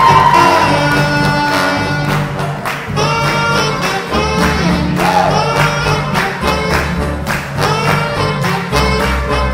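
Small live jazz band playing a fast swing tune. Horns carry the melody over guitar and double bass, with a brisk, steady beat.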